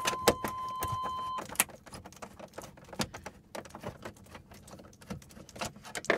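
Scattered sharp plastic clicks and knocks of hands working the wiring connectors loose behind a truck's instrument cluster. A steady electronic beep sounds at the start and cuts off about a second and a half in.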